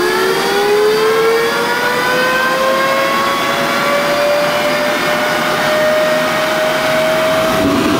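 Rolls-Royce Derwent centrifugal-flow turbojet spinning up on start: a loud whine of several tones, climbing slowly in pitch. Near the end a rushing noise joins in as the fuel lights on a successful start.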